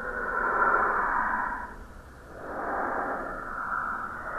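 Two slow swells of breathy, whooshing noise, the first rising and fading over the opening second and a half, the second building again about halfway through.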